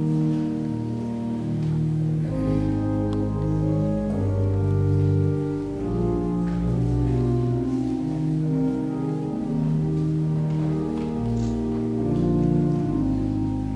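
Slow instrumental church music of sustained held notes and chords that change every second or so.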